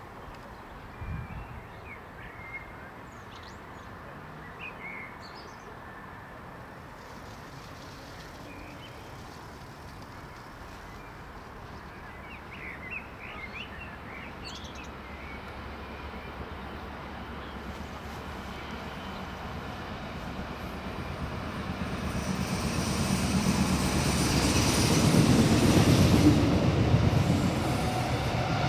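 DB Class 628 two-car diesel multiple unit approaching and passing close by. Its engine and wheels on the rails grow steadily louder from about twenty seconds in and are loudest near the end.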